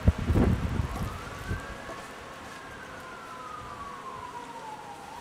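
A distant siren wailing, one slow rise in pitch and a long fall. A burst of low rumbling thumps on the microphone in the first second is the loudest part.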